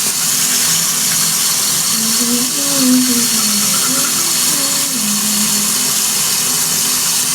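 Tap water running steadily into a bathroom sink. Faint wavering tones sound underneath from about two to five seconds in.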